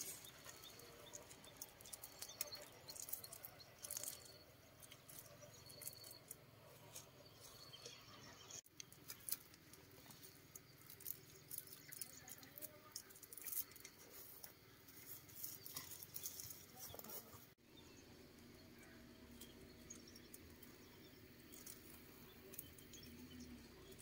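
Faint rustling and light crackling of tomato plants as leaves and stems are handled, in short irregular clicks and snaps.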